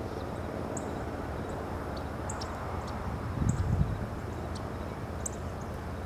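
Outdoor ambience: a steady hiss with low wind rumble on the microphone, strongest about three and a half seconds in, and short high chirps repeating about once a second.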